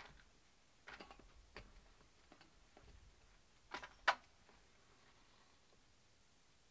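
A handful of sharp clicks and knocks from handling a camp stove and its nearly empty gas canister while trying to light it, the loudest pair about four seconds in. No gas hiss follows: the canister is giving no gas.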